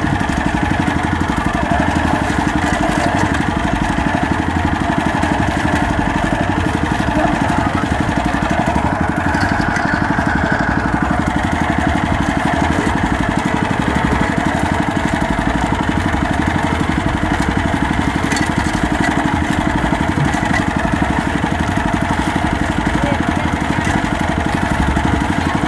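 Small fishing boat's engine running steadily at an even speed, a fast, unbroken putter.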